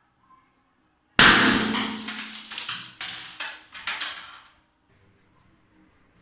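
A balloon bursting with a sudden loud bang about a second in, followed by a noisy rush with several more cracks that dies away after about three seconds.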